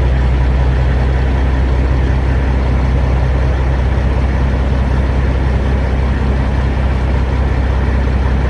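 Semi truck's diesel engine running steadily at low revs, a deep even drone.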